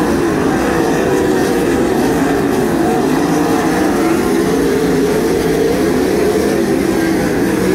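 A pack of World of Outlaws 410 sprint cars' methanol-burning V8 engines running at racing speed, several engine notes overlapping and rising and falling as the cars pass.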